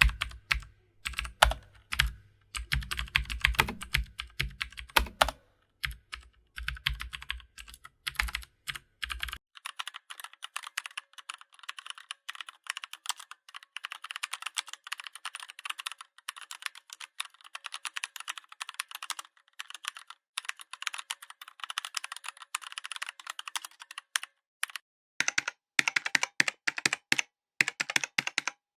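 Typing on a computer keyboard: key clicks in quick bursts with short pauses, then about nine seconds in a faster, continuous run of lighter keystrokes, and about twenty-five seconds in louder, more spaced key presses.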